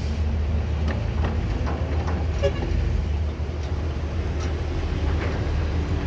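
Caterpillar 312B excavator's diesel engine running with a steady low rumble, with scattered short clicks from the machine at work.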